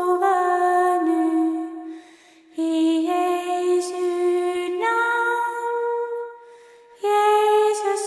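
Female voice singing a slow Norwegian folk lullaby in long held notes, with two short pauses between phrases.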